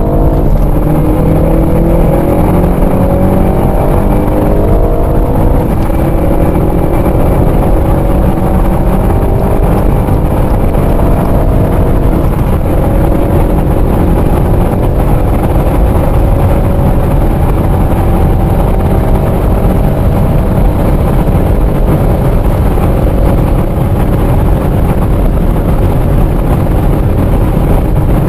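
Turbocharged four-cylinder car engine at full throttle, heard from inside the cabin, accelerating hard from about 100 to 240 km/h: the revs climb steadily and drop back at each upshift.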